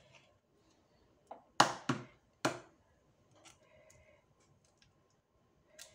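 A raw egg rapped against a hard edge to crack its shell: three sharp knocks within about a second, then faint small handling sounds as the shell is pulled apart.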